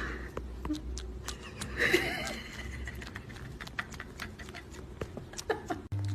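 An animal's short call about two seconds in, over scattered knocks and clicks and a low rumble.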